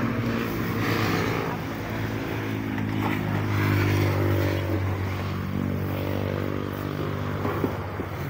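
A vehicle engine running steadily close by, a low hum whose pitch sags slightly in the middle.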